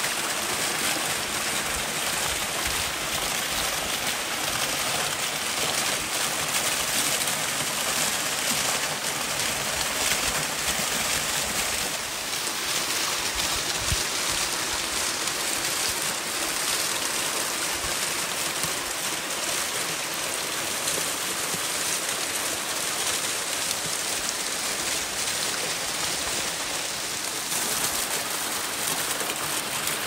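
A 14 m straight-drop waterfall pouring steadily, a constant rush of falling water with no breaks.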